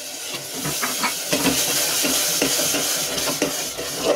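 Ground tomato purée sizzling loudly in hot oil and fried onions in an aluminium pressure cooker as it is stirred, with short clicks of the spoon against the pot. The hiss builds about a second in.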